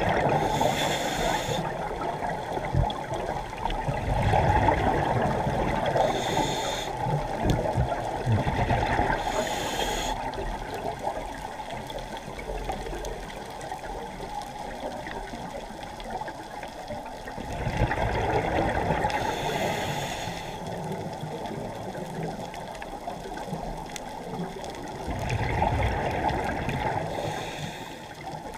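Scuba diver's regulator breathing underwater, heard muffled through a GoPro's underwater housing: bursts of exhaled bubbles every several seconds over a steady low water rush.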